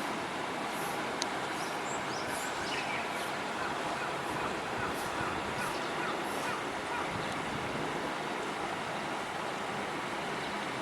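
Faint Japanese bush warbler calling: a quick run of about ten repeated notes lasting a few seconds in the first half, over a steady wash of traffic and wind noise.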